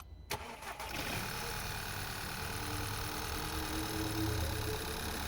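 Four-cylinder car engine idling roughly with a misfire, which is traced to a faulty ignition coil pack on cylinder 4. A click about a third of a second in marks where the engine sound begins.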